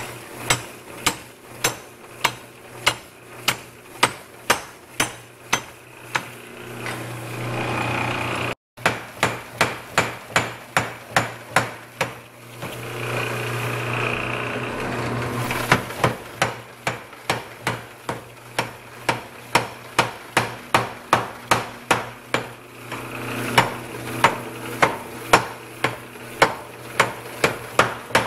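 Power hammer striking a red-hot piece of truck leaf-spring steel in runs of rapid, even blows, about two to three a second, over the steady hum of the machine. The blows stop briefly twice while the hammer keeps running.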